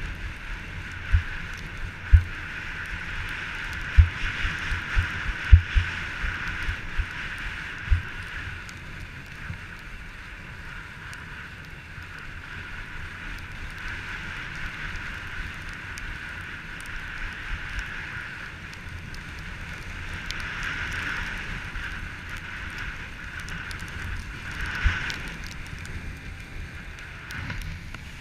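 Skis sliding over packed snow, a steady scraping hiss, with several short low thumps over the first eight seconds and one more near the end.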